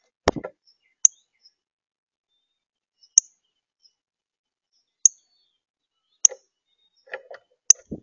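Northern cardinal at a platform feeder: sharp, high chip notes, about six, spaced one to two seconds apart, with knocks and rattles of its bill and feet on the seed dish, the first just after the start and a low thump at the very end.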